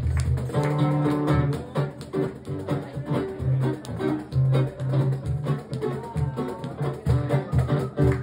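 Amplified nylon-string acoustic guitar played live, strummed chords and picked notes in a driving rhythm over strong low bass notes.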